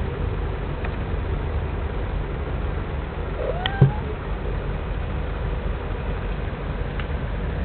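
A tabby cat meows once, a short call rising in pitch about halfway through, with a sharp knock at the same moment that is the loudest sound. A steady low rumble runs underneath.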